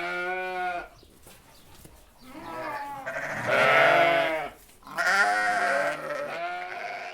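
Sheep bleating in three calls: the end of one bleat, then a longer, louder bleat about two seconds in, then another about five seconds in.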